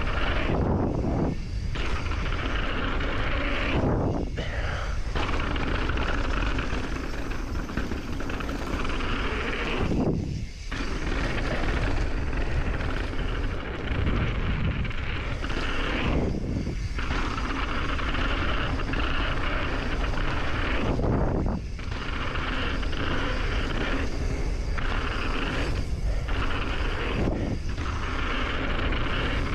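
Wind rushing over a helmet-mounted action camera and mountain-bike tyres rumbling over a dirt trail during a fast descent. The noise drops out briefly several times.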